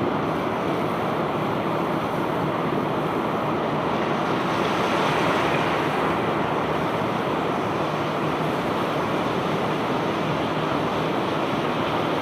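Steady rushing noise of bulk cargo pouring off a self-unloading barge's discharge conveyor, an even roar without separate knocks.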